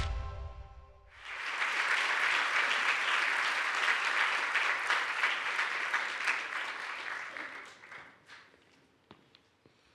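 An audience applauding. The clapping starts suddenly about a second in, holds, then dies away with a few last claps near the end. The last of the intro music fades out just before the applause.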